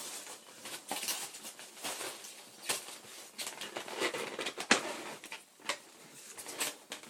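Rustling and scraping of foam packing and a cardboard box being dug through by hand, with irregular sharp clicks and knocks, the loudest a little under five seconds in.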